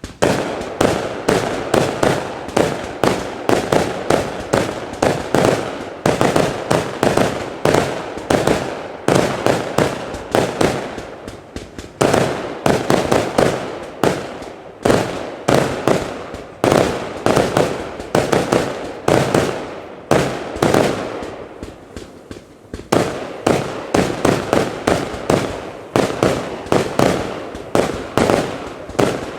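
Funke Sulphur Crown compound firework firing a rapid, continuous barrage of shots, several a second. The firing eases off twice, about a third of the way in and again about three quarters through, then picks up sharply each time.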